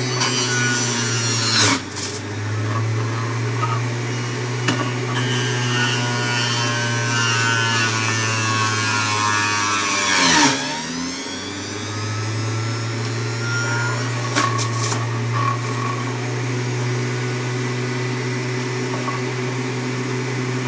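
Electric centrifugal juicer running and grinding apple pieces pushed down its feed chute with the plunger. About ten seconds in, the motor's pitch dips under the load and then climbs back up to speed.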